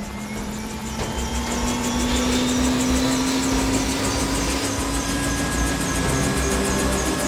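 Helicopter starting up on the pad: a turbine whine rises in pitch over the first few seconds, over a fast, even beat from the turning rotor and a low rumble.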